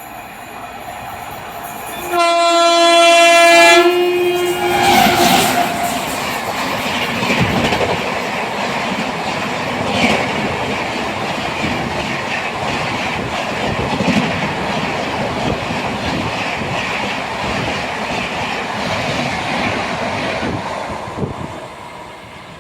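A train sounds a two-tone horn for about two seconds, with the pitch dropping as it goes by, then a fast express train passes with a long rumble and rhythmic wheel clatter over the rail joints that fades out near the end.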